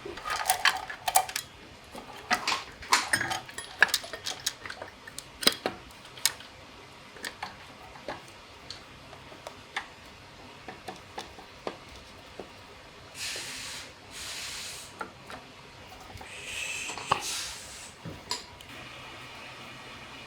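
Small metal parts and hand tools clinking and tapping during engine work, densely at first and then sparser. Partway through come two hisses, each one to two seconds long.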